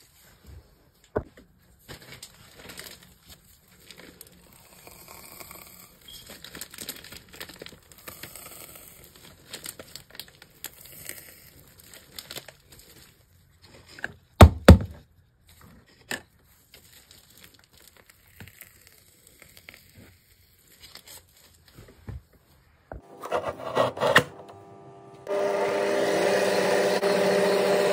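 Soft scraping, tapping and rustling from handling scrub ingredients and containers, with two sharp knocks about halfway through. About 25 seconds in, an electric mixer starts and runs steadily with a motor hum, whipping the body scrub.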